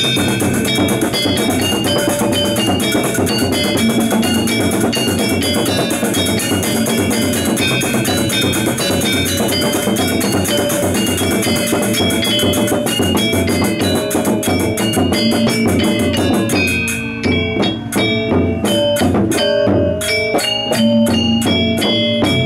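Balinese gamelan gong kebyar ensemble playing: bronze metallophones in fast, dense figuration with drums and gongs. About three-quarters of the way in the dense texture breaks into sparser, separate strokes with ringing notes.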